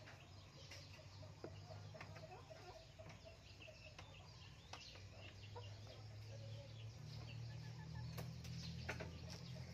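A hen clucking faintly, over a low steady hum, with a few sharp clicks near the end.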